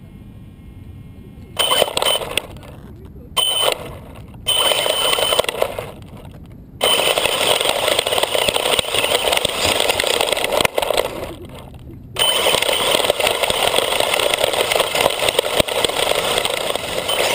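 RC car's motor and tyres heard from a camera mounted on the car as it drives over wood chips. It goes in short spurts, three within the first six seconds, then runs almost continuously from about seven seconds in, with a brief stop near twelve seconds.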